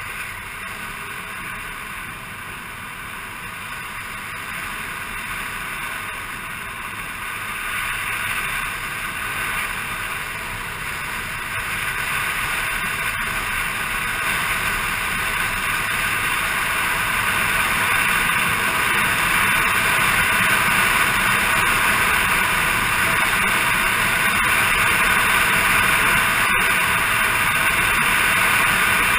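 Motor scooter underway: a steady rush of wind and road noise over the engine, growing gradually louder.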